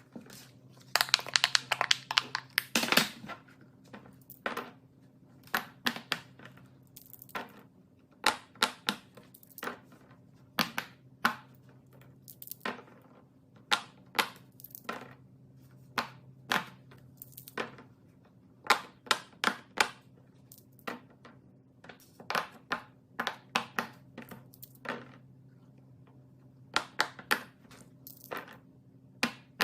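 Fidget toy being handled: a long, irregular series of sharp clicks and pops, one or two a second and sometimes in quick clusters.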